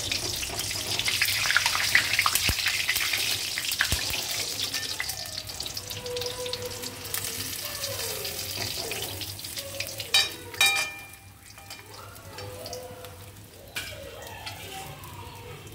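Chicken patties deep-frying in hot oil in a wok, sizzling strongly at first and fading as they are lifted out with a wire skimmer. A couple of sharp metal clinks come about ten seconds in.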